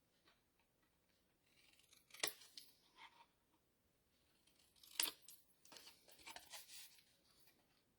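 Scissors snipping through cardstock: two sharp snips about two and five seconds in, then a run of quieter crinkly paper-cutting sounds.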